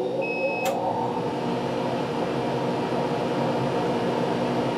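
Laser cutter just switched on, running with a steady hum. One short high beep sounds just after the start as its new control panel boots.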